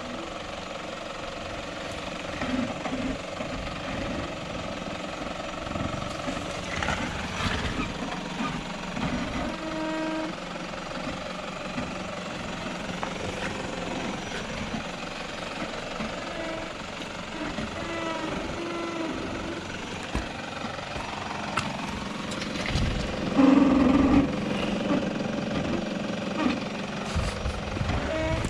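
A vehicle driving over rough ground: engine noise under steady rattling and jolts. A brief louder sound comes about four-fifths of the way through.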